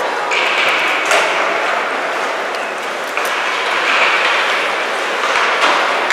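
Crowd noise and cheering echoing in an ice hockey arena, swelling and easing, with a few sharp knocks of sticks or puck on boards.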